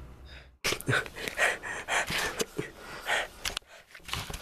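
A person breathing hard and fast close to the microphone, a quick run of short, gasping breaths with a brief pause near the end.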